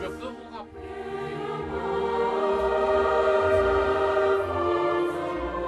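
Background music: a choir singing long held notes, swelling in about a second in.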